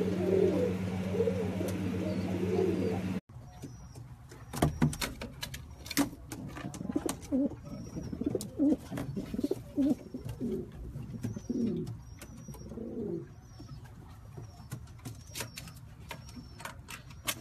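Domestic pigeons cooing, a run of rising-and-falling coos, over a steady low hum for the first three seconds or so. After an abrupt cut, the cooing goes on with scattered sharp clicks and knocks and faint, high, repeated chirps.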